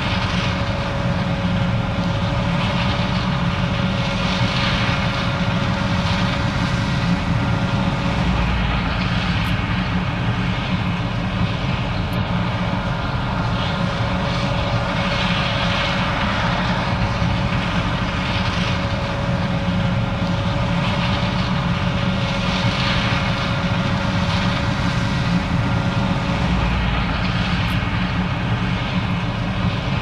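John Deere 9550 combine running steadily while harvesting corn, with the tractor pulling the grain cart alongside: a continuous diesel engine and machinery drone with a faint steady whine.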